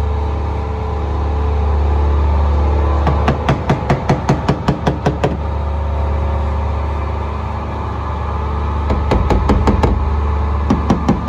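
Bursts of quick sharp metallic knocks, about five a second, from panel work on a steel car door under a dent-pulling tool, over a steady low hum. There is a burst of about two seconds a few seconds in, and shorter ones near the end.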